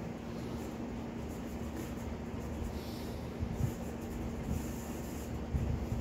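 Steady low hum over quiet room noise, with a few faint soft thumps about three and a half seconds in and near the end.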